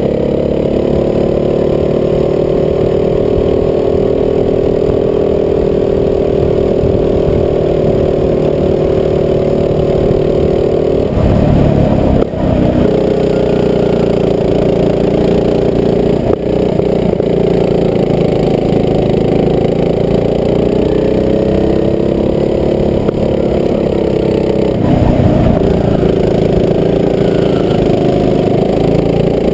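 Rental go-kart's small engine running continuously under throttle, close to the microphone, its pitch rising and falling as the kart speeds up and slows. There is a brief rough break about 11 seconds in and another about 25 seconds in.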